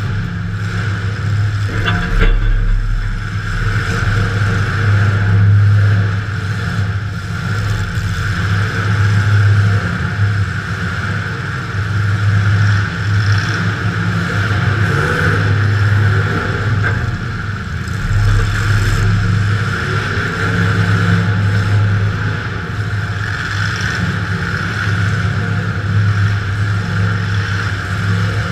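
Demolition derby car's engine running, heard from inside the car: a steady low drone that swells and eases every few seconds as the throttle changes.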